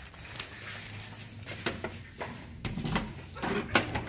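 Car keys clicking and the trunk lid latch of a Honda Civic being worked open by hand: a string of sharp clicks and knocks, the loudest a little before the end.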